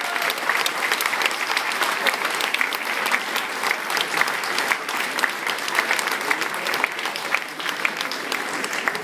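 Audience applauding steadily: dense hand clapping from a large crowd.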